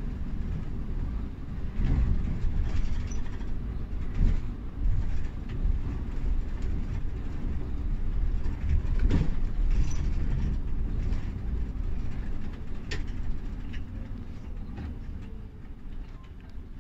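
Inside an intercity coach on the move: a steady, deep rumble of engine and road noise, with scattered knocks and rattles from the cabin. The noise eases off near the end.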